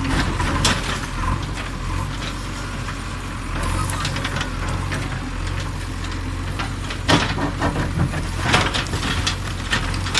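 Backhoe's diesel engine running steadily as its bucket pushes down a brick-and-plaster wall. Falling masonry clatters and crashes several times, loudest in the second half.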